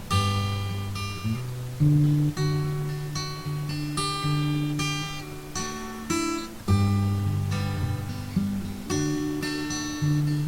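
Background music: acoustic guitar strummed in chords, each struck about every second or two and left to ring.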